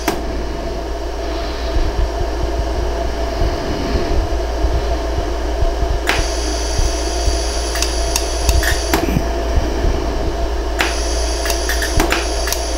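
Pulsed jewelry laser welder firing single shots to core weld a post onto a sterling silver earring. Each shot is a sharp click: one at the start, then several after about six seconds, coming closer together toward the end. A steady fan hum runs underneath.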